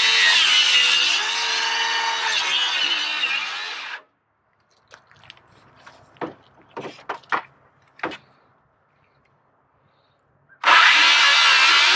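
Circular saw running and cutting through a wooden board, stopping abruptly about four seconds in. A few short knocks follow as the board is shifted, then the saw starts a second cut near the end.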